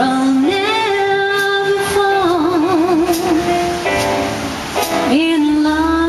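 Woman singing a 1940s swing number, holding two long notes that each end in vibrato, with a short break about four seconds in.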